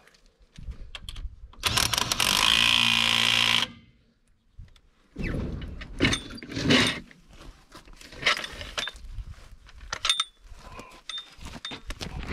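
An impact wrench runs for about two seconds with a steady buzz, spinning off a wheel's lug nuts. Then come scattered metallic clinks and clanks of the lug nuts and tools.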